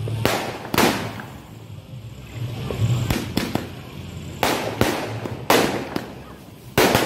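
Fireworks bursting: about eight loud bangs at uneven intervals, some in quick pairs, each trailing off in an echo.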